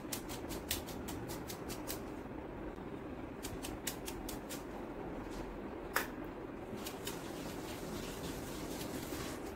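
Blush brush bristles sweeping over the cheek: light, quick scratchy ticks in irregular clusters, with a sharper one about six seconds in, over a steady low hiss.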